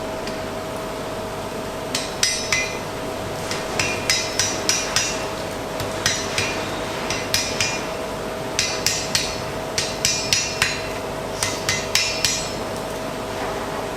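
Blacksmith's hand hammer striking iron on an anvil, each blow ringing. The blows come in short groups of two to eight, with brief pauses between them as the piece is turned, starting about two seconds in and stopping shortly before the end.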